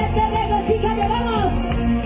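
Live band playing upbeat Latin-style praise music with a steady beat and a wavering melody line over it.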